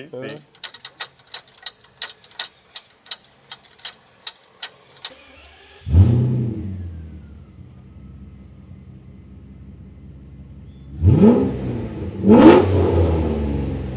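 A run of sharp clicks, about three a second, then a Mercedes SL600's V12 starts about six seconds in, settles to idle and is blipped twice near the end, each rev rising and falling; it is running through a modified exhaust under test.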